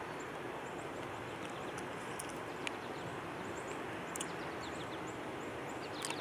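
Steady outdoor background noise with faint, scattered bird chirps and a few soft clicks.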